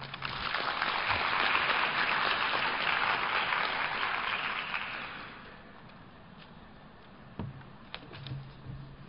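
Audience applauding for about five seconds, then dying away, followed by a few faint knocks.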